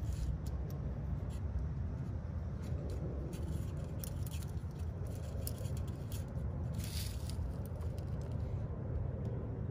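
Faint scattered scrapes and ticks of a cable-routing wire and fingertips working at a cable port in a bike frame tube, over a steady low rumble; a slightly louder scrape about seven seconds in.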